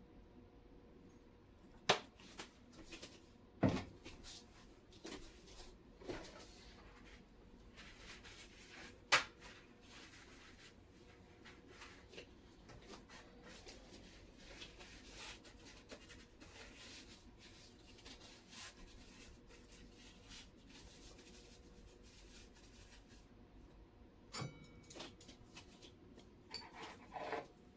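Quiet kitchen handling sounds: light knocks and clicks of utensils and containers being picked up and set down, with a few sharper knocks in the first ten seconds and softer rustling and clicks after.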